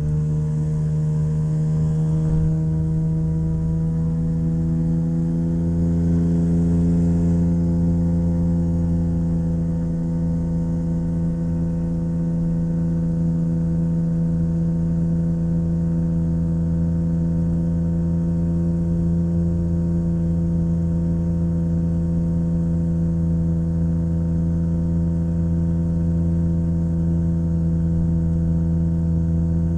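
Rotax 582 two-stroke engine of a Chinook Plus 2 ultralight running steadily, heard through the aircraft intercom. Its pitch rises slightly over the first few seconds, then holds even.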